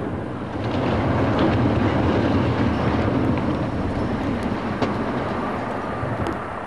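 Low, continuous rumble of a 17-storey tower block collapsing after its explosive demolition charges have fired, with a few faint cracks, easing slightly toward the end.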